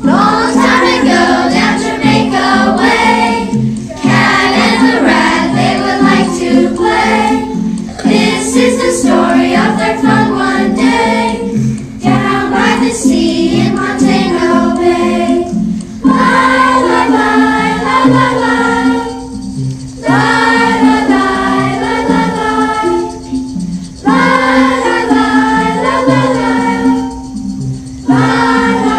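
A class of children singing together as a choir over instrumental accompaniment, the sung phrases pausing about every four seconds.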